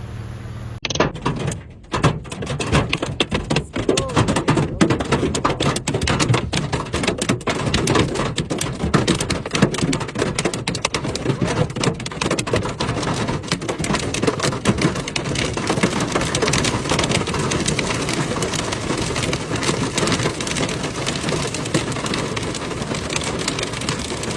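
Heavy rain falling, a loud dense patter of countless drops that starts abruptly about a second in and keeps on steadily.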